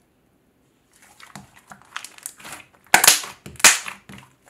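Thick clay-filled slime being stretched and squeezed by hand, giving off sticky crackles and pops, with two louder pops a little past the middle.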